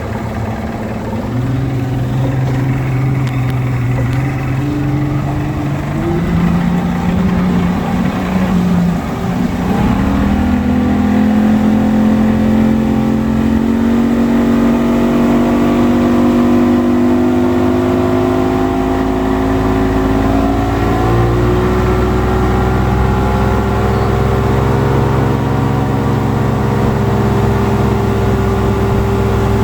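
2005 Evinrude 225 two-stroke V6 outboard running under way, its pitch stepping up several times as the throttle is opened. The engine has a knock that the owner is asking to have diagnosed.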